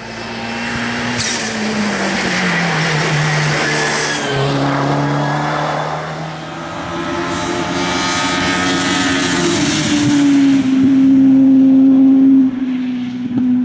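Touring race car engine at full throttle. Its note falls over the first few seconds, then climbs again and holds high, loudest just before the end.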